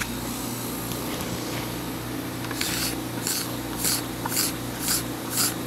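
Metal scraper rasping across a polyethylene ski base in short strokes, about two a second starting a couple of seconds in, cleaning loose material from the edges of surface gouges before P-Tex is applied. A steady low hum runs underneath.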